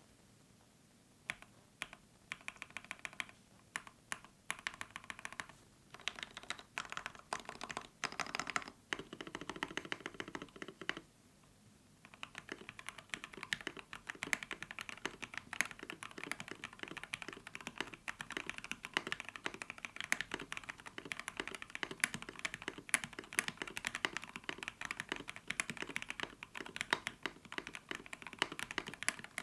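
An IKKI68 Aurora mechanical keyboard with lubed FFFF linear switches on an FR4 plate being typed on. It starts with single keystrokes and short bursts, pauses briefly about eleven seconds in, then runs into steady fast typing.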